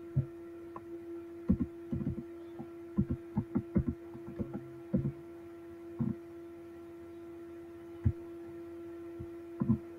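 Computer keyboard keys being pressed in irregular taps, heard as dull thumps, while a phone number is typed in. A steady hum runs underneath.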